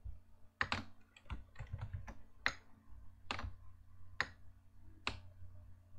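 Keystrokes and clicks on a computer keyboard and mouse: about ten sharp, irregularly spaced clicks, over a faint steady hum.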